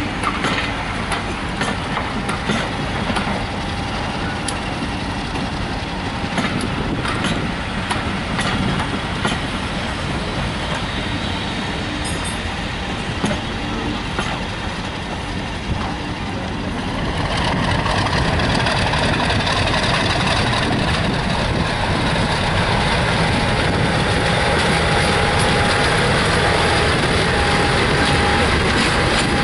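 Railway coaches rolling past with wheel clicks over the rail joints. About two thirds of the way in, a British Rail Class 50 diesel locomotive, 50008 Thunderer, comes up and passes close, and the running of its English Electric 16-cylinder diesel engine grows louder and then holds steady, with a steady whine.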